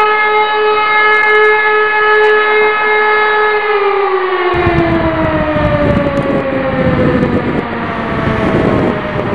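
Fire station's electromechanical alarm siren holding a steady wail, then winding down with its pitch falling slowly from a little before halfway. A low rumbling noise joins about halfway through.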